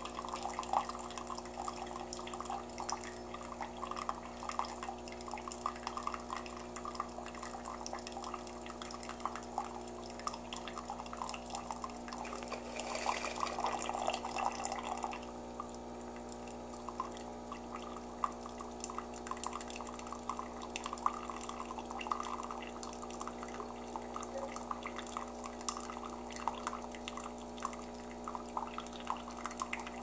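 Ambiano single-serve pod coffee maker brewing: a thin stream of coffee trickling and dripping into a ceramic mug over a steady hum. There is a louder, noisier spell for about two seconds around the middle.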